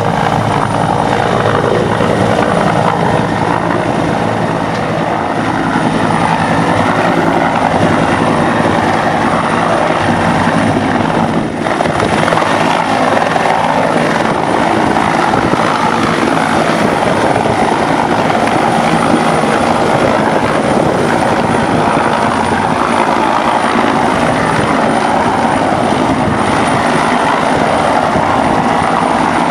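Helicopter hovering low over the water, its rotor and turbine noise loud and steady, with a thin high whine above it.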